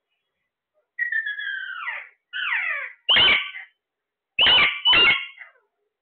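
Caged Alexandrine parakeets calling: two falling, whistle-like calls, then three louder, harsh screeches, the last two in quick succession.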